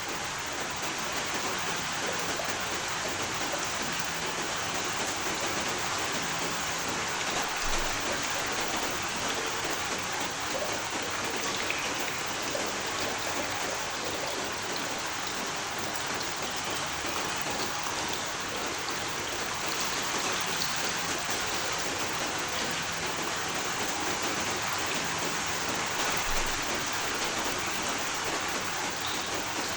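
Steady rain falling, an even patter of drops on surfaces.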